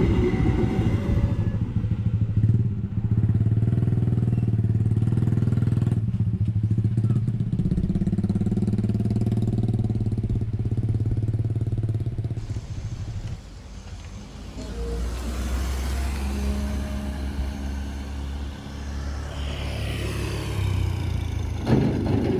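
Passenger train coaches rolling past a level crossing with a loud steady rumble that dies away about halfway through. After that, a car and motorcycles drive over the crossing.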